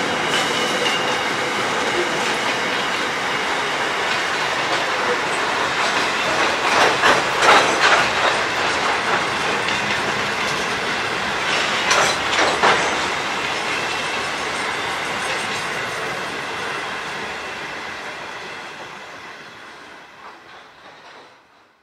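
Grain hopper wagons of a freight train rolling past on the rails, a steady rumble of steel wheels with bunches of clickety-clack as wheel sets cross rail joints, about seven and twelve seconds in. The sound fades away as the last wagon goes by.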